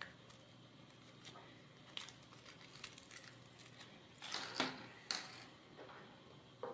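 Faint clicks and light rattles of small kit parts being handled and set down on a tabletop: plastic gear motors, aluminium mounting blocks and a bag of screws. A couple of slightly louder rattles come about four and a half to five seconds in, with another click near the end.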